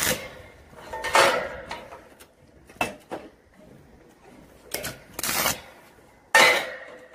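Stick (arc) welding on a metal roof panel: several short crackling bursts, each about half a second, as tack welds are struck, with a couple of sharp metallic clicks between them.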